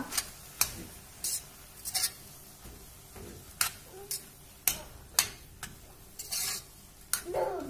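Metal spoon stirring a thick mix of cooked rice, fenugreek, jaggery syrup and grated coconut in a pressure cooker pan, clinking and scraping against the pan at irregular intervals, with one longer scrape near the end.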